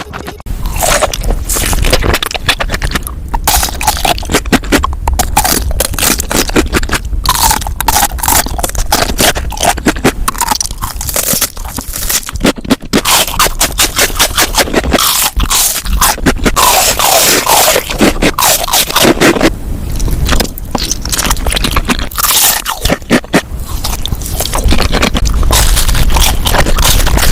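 Close-miked eating sounds: loud, rapid crunching bites and chewing of crisp food, with scraping and crackling throughout.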